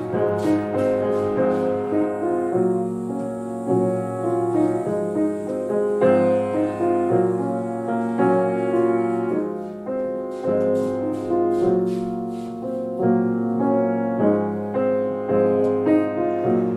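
Background music: a gentle piano melody with steady, evenly changing notes.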